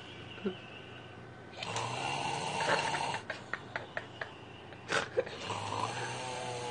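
Snoring: two long breaths, with a run of quick clicks between them.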